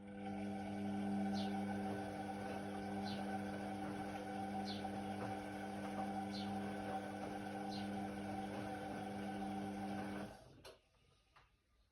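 Indesit WIDL 106 washer-dryer: an electric pump or valve inside the machine hums steadily for about ten seconds, then cuts off with a click, with faint chirps every second or two over the hum.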